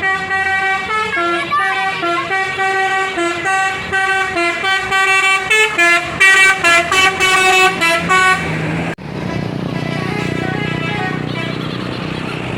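Bus telolet horn: a multi-tone musical air horn playing a tune of stepping notes, which break into quicker short blasts near the end. It cuts off abruptly about nine seconds in, giving way to a steady rushing noise of traffic.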